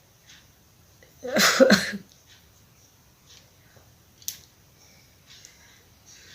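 A woman's single sneeze, a loud two-part burst lasting under a second, followed a few seconds later by a brief sharp click.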